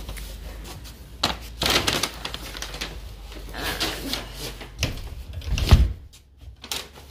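Rustling and handling noise from a parka and the hand-held phone while walking, with scattered clicks and a heavy low thump near the end, after which the low background hum stops.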